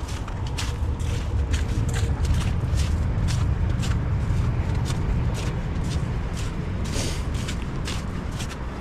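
Footsteps at a steady walking pace, about two a second, over a low rumble that swells in the middle and eases off near the end.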